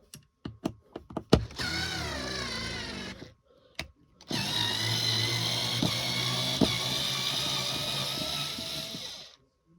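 Small power-tool motor whirring in two runs, about two seconds and then, after a short pause, about five seconds, as a screw is driven through the drawer front to make the hole for the handle. A few light clicks come before it.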